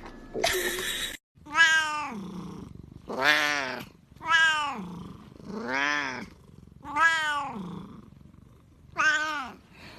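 A Siamese-type cat meowing six times, each meow rising then falling in pitch, with short pauses between them. A brief rustling noise comes just before the first meow.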